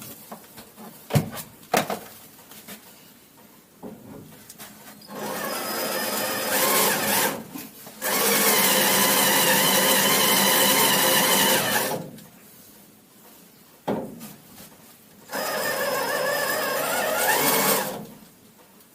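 Power drill running in three bursts, the middle one the longest and loudest, as it drills out the head of a rusted, seized screw holding a van's side door lock. A couple of sharp clicks come before the first burst.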